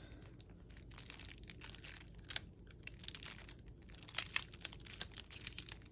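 Foil booster-pack wrapper of Magic: The Gathering cards being crinkled and torn open, a run of sharp, irregular crackles that grow louder about four seconds in.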